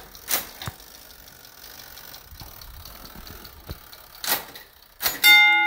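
Clicks and a faint rattle from the mechanism of a Gamewell fire alarm box being worked by hand inside its open door. Near the end, a brass fire-alarm gong strikes once and keeps ringing: the alarm circuit beginning to tap out a signal.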